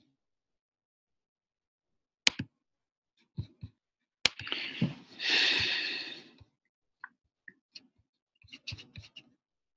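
Scattered sharp clicks of someone working a computer mouse and keyboard, heard through a video-call microphone, with a loud click about two seconds in, a two-second rustle of noise around the middle, and a quick cluster of clicks near the end.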